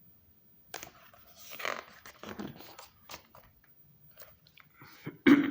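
Paper pages of a book being handled and turned: a click, then rustling, with a short louder sound just before the end.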